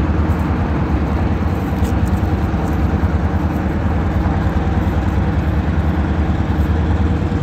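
Norfolk Southern high-hood diesel locomotive's engine running steadily at low throttle, a deep even note, as it pulls a cut of covered hoppers slowly while switching.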